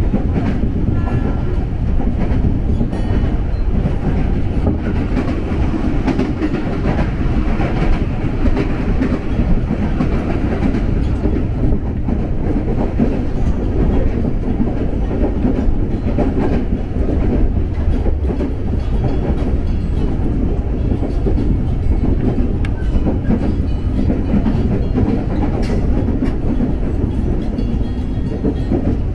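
KRL Commuter Line electric train running on the rails, a steady rumble with scattered clicks from the wheels.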